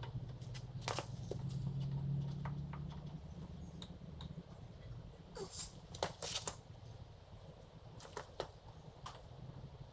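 Scattered light clicks and knocks from shifter cables and parts being handled and fed into place, over a steady low hum.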